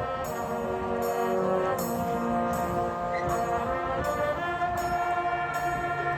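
Marching band brass playing long held chords that change every second or two, over a steady percussion beat a little faster than once a second.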